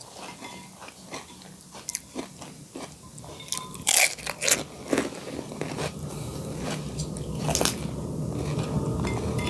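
Crisp pani puri shells crunching as they are bitten and chewed, in quick irregular crunches, the loudest about halfway through, over a low rumble that grows toward the end.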